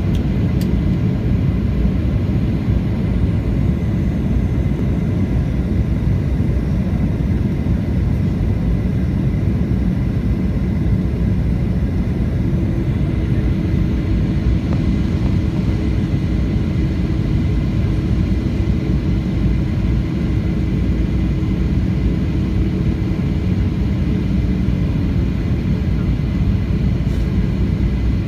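Steady jet engine and airflow rumble inside the cabin of a Boeing 737 airliner on approach to land. A faint steady hum joins in about halfway through.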